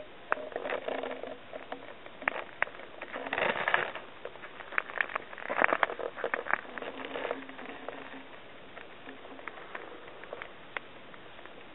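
Footsteps crunching and rustling on dry leaf litter and gravel, with scattered sharp clicks. The loudest stretches come about three and a half and about six seconds in, then it settles to faint scattered ticks.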